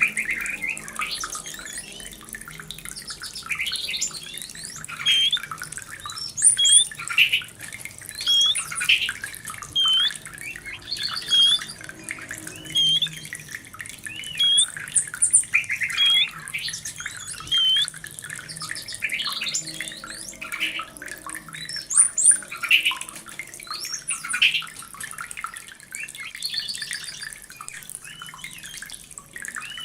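White-rumped shama in breeding condition singing: a varied string of loud whistles, chirps and harsher notes in short phrases, one every second or two.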